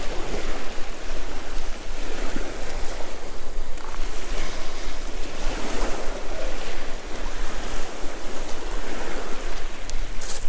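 Sea waves washing on the shore in a steady wash of noise, with wind buffeting the microphone.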